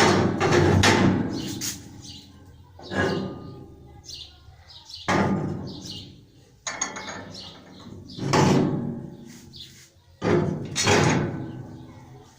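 A series of about six sudden knocks or bangs, roughly one every one and a half to two seconds, each ringing out and fading over a second or two.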